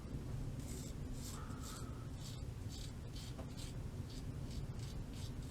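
Taipan 3D-printed safety razor with a brand-new blade scraping whiskers off a lathered face in short, repeated strokes, about two a second.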